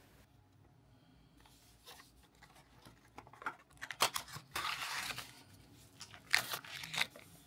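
A small cardboard box being opened and an anti-static bag handled: scattered clicks and rustles start about two seconds in, with a sharp snap of the box flap about four seconds in and a short sliding rustle just after. The plastic bag crinkles near the end.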